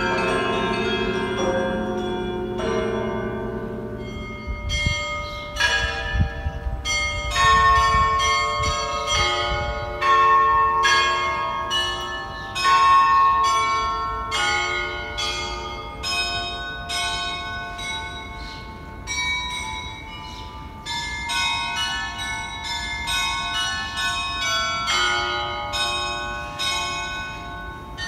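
Church bells of St. Michael's Golden-Domed cathedral ringing a peal. At first the deeper bells hum and die away. About five seconds in, quick strikes on the small high bells begin, with a few deep strokes among them, and the rapid chiming carries on throughout.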